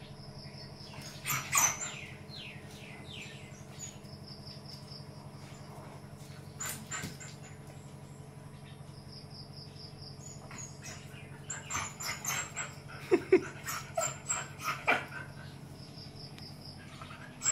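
A dog nosing and scuffling at an upturned woven bamboo basket, with clicks and scrapes of the basket being handled, busiest about twelve to fifteen seconds in. Short high bird chirps come now and then, over a steady low hum.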